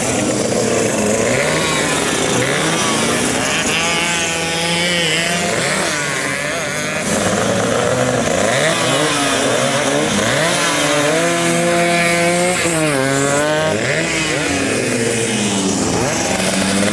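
Several racing engines revving at once, their pitches repeatedly rising and falling over one another.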